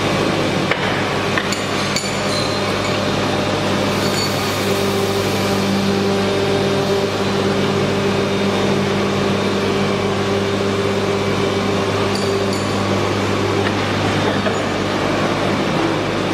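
PVC shoe-sole injection moulding machine running with a steady hum. A higher whine joins about five seconds in and drops out near fourteen seconds. A few light metallic clinks sound over it.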